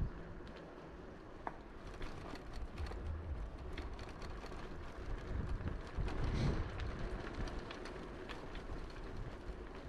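Riding noise from a bicycle on a paved path: a steady low rumble with scattered small clicks and rattles from the bike, and a louder rush about six seconds in.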